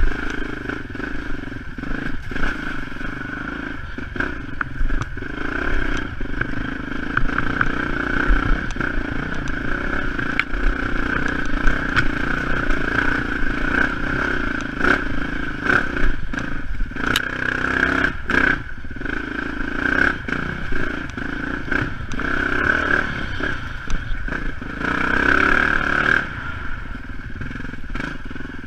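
Yamaha WR dirt bike's engine running steadily as it rides a rough trail, with frequent short knocks and rattles from the bike over the ground, and a louder stretch near the end.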